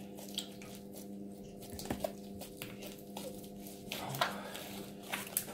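Faint squishing and soft irregular clicks of homemade white-glue slime being kneaded and pressed between the hands, over a steady low hum.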